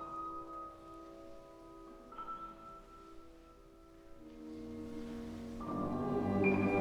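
Live classical music: soft held chords with new notes entering one at a time, swelling in loudness from about four seconds in and growing much fuller near the end.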